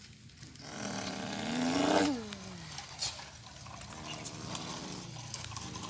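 A child's voice imitating a truck engine while pushing a toy dump truck. There is a buzzing, lip-trilled "brrrm" that rises and then falls in pitch, loudest about two seconds in, and a steady droning hum from about four seconds in.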